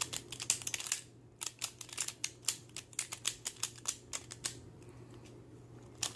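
Shengshou magnetic pyraminx being turned by hand: rapid clicking as its pieces turn and snap into place. There is a brief pause about a second in, and the clicks thin out near the end.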